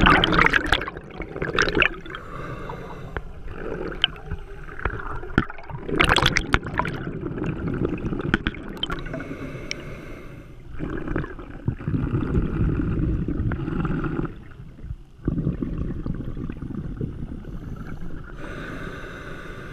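A scuba diver breathing through a regulator, heard underwater: a loud rush of exhaled bubbles at the start and again about six seconds in, with quieter bubbling and hiss between.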